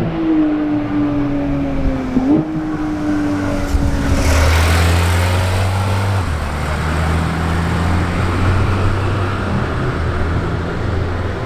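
Sports car engine and exhaust: the engine note falls slowly in pitch for about four seconds, with a brief blip about two seconds in. A rush of noise follows, then a deep, steady, low engine drone.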